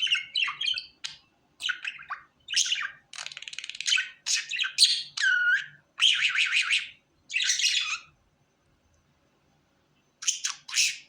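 Pet budgerigar chattering and warbling in quick high chirps, with one dipping whistled note about five seconds in. It pauses for about two seconds, then chirps again near the end.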